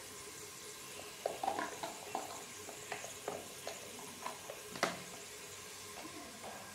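Metal utensils and a steel cooking pot clinking in a run of short knocks, with one louder clank about five seconds in, over a faint steady sizzle of food cooking on the stove.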